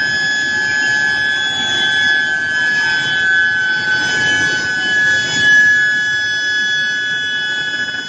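Induction heating coils of a steel billet preheating line giving a steady high-pitched whine with several overtones, over a broad mechanical noise from the line.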